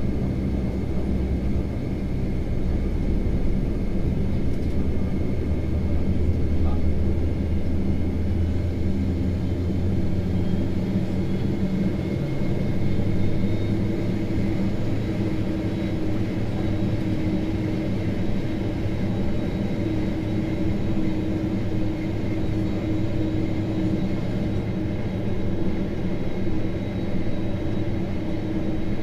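Steady cabin noise inside a Boeing 767-300ER on the ground: a low rumble and hum of engines and air systems, with a faint high whine that rises slightly in pitch about ten seconds in.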